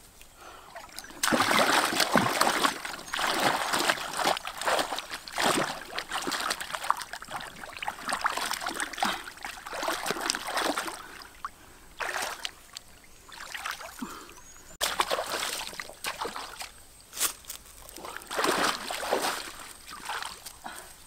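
Shallow water splashing and sloshing in irregular bursts, starting about a second in.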